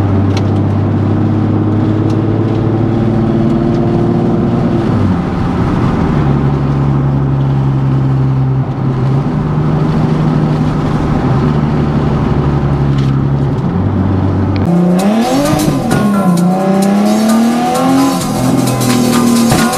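Nissan 370Z's 3.7-litre V6 with a Tomei aftermarket exhaust droning at a steady cruise, its pitch creeping up and then dropping back about five seconds in. Near the end the sound switches abruptly to brighter, louder engine revving that rises and falls.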